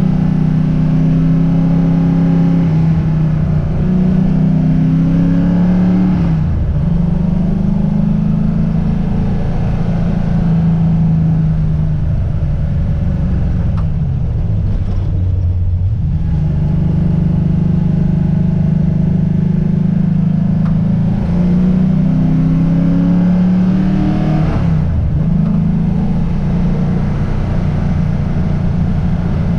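Car engine running while the car is driven, its pitch climbing under acceleration and dropping suddenly at gear changes about six seconds in and again near the end, with a slow sink as it eases off around the middle.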